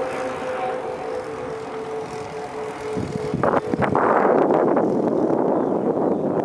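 Saito 72 four-stroke glow engine of an RC model airplane flying overhead, a steady drone from a distance. About three seconds in, a few knocks give way to a louder rushing noise of wind on the microphone that covers the engine.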